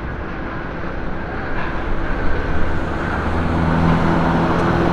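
Road traffic noise from a car driving along a city street: a steady rush, with a low engine hum coming in about halfway through and the level slowly rising.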